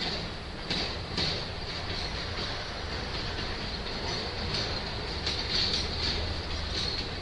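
Freight train boxcars rolling past: a steady rumble of wheels on rail with clacks now and then, and a high wheel squeal that flares up and fades several times.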